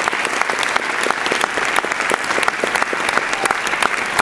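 Large audience applauding, many hands clapping steadily.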